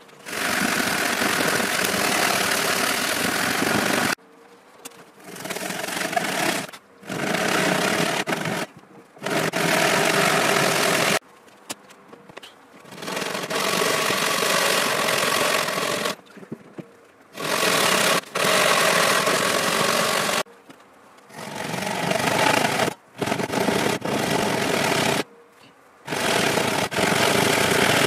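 Japanese pull saw ripping lengthwise through a thick softwood board in fast, sped-up strokes that blur into a continuous rasping, coming in stretches broken by several short breaks.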